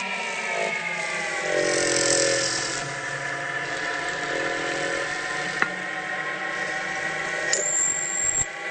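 Metal lathe running, its drive whine easing slightly lower in pitch over the first couple of seconds and then holding steady. A sharp click comes about five and a half seconds in.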